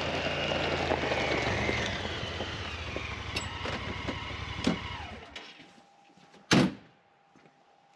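Honda Pioneer side-by-side UTV driving up on gravel, its engine running and then shutting off about five seconds in. About a second later comes one loud slam of its door.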